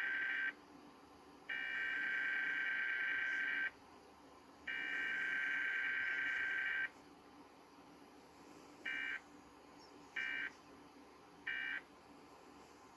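Emergency Alert System SAME data tones from a TV broadcast: the end of the first header burst, then two more header bursts of about two seconds each, a second apart. About two seconds later come three short end-of-message bursts, a second apart.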